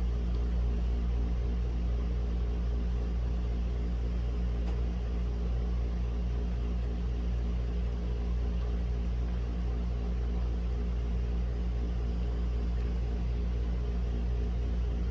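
Steady low machine hum with a drone of several even pitches, unchanging throughout, and a few faint isolated clicks scattered through it.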